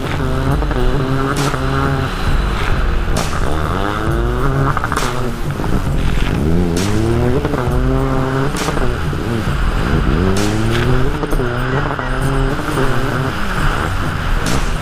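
Racing jet ski engine running flat out, its pitch rising and falling every second or two as the craft skips over the chop, with repeated sharp slaps of the hull hitting the water.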